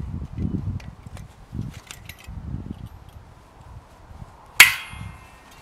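Bow saw handled at a snow-covered log: a few dull knocks, then one sharp metallic clang with a short ring about four and a half seconds in, the steel saw being struck.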